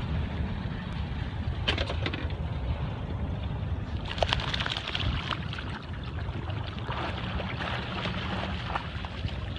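Small motorboat's engine running steadily at idle, a low rumble under the sound of water, with brief splashes about two and four seconds in as a dog swims alongside.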